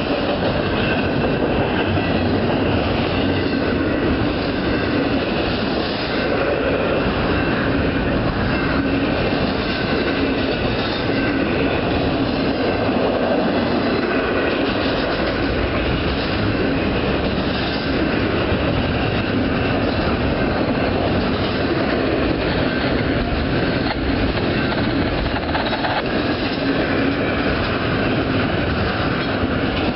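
Doublestack container cars of a long freight train rolling past close by: a loud, steady rumble and clatter of steel wheels on the rails.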